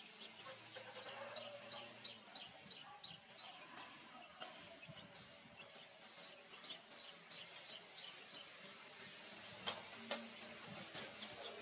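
Faint outdoor ambience with two runs of quick, evenly spaced high chirps, about three a second, from a small calling animal. A sharp click comes near the end.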